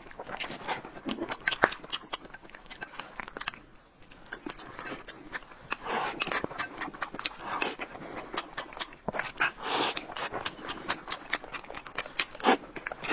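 Close-up eating sounds of two people having rice and braised pork belly with preserved mustard greens: chewing with many small sharp clicks, pausing briefly about four seconds in.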